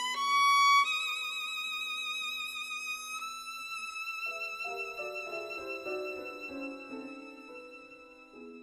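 Background music: a violin holding long notes with vibrato that step upward, joined about halfway through by a run of shorter, lower accompanying notes, then fading out near the end.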